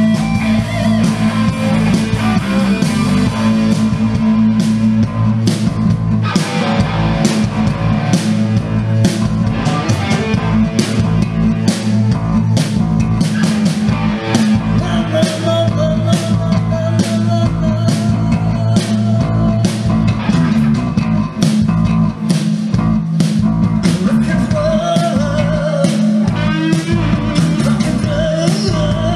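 Live rock band playing: electric guitars over bass and a steady drum beat of about two hits a second, with a wavering lead melody line coming in over the second half.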